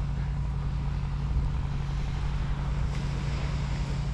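Car tyre air pump running, a steady motor hum that cuts off abruptly about four seconds in.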